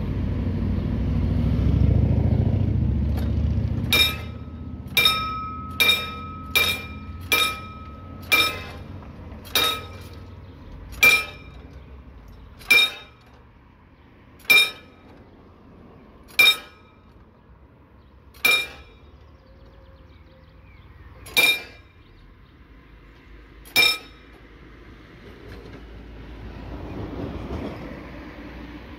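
Mechanical level-crossing bell (Läutewerk) of a hand-cranked barrier striking about fourteen single metallic rings, with the strokes slowing from about one a second to one every two and a half seconds as the barriers are lowered. A low rumble comes in the first few seconds.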